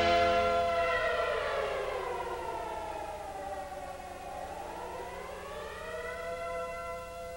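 Air raid siren sliding slowly down in pitch for about three seconds, then winding back up and holding a steady wail, gradually getting quieter.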